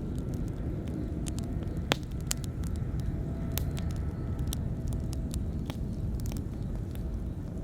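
Wood campfire burning, crackling with scattered sharp pops and snaps, the loudest about two seconds in, over a steady low rumble.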